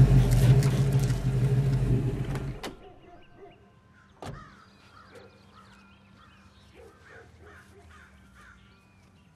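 Pickup truck engine running steadily, then switched off suddenly a little over two and a half seconds in. Birds then call quietly, and a single sharp knock comes about four seconds in.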